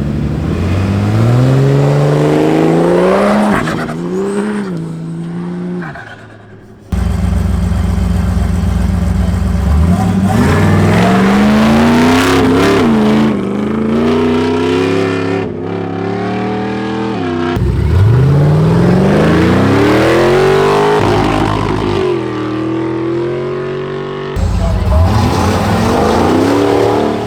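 An off-road 4WD's engine revving hard under acceleration, its pitch climbing and dropping back several times as it winds up through the gears, with abrupt jumps between shots.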